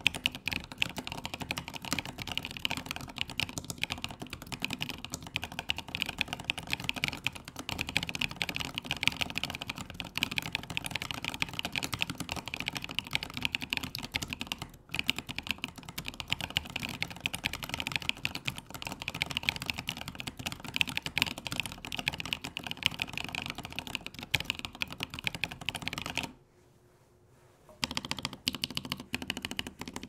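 Typing on a Standard Keys TWS split ergonomic mechanical keyboard with stock DD switches, MT3 keycaps and an integrated plate in a plastic case: a steady run of scratchy, pingy keystrokes. It stops for a moment about halfway through and for about a second and a half near the end.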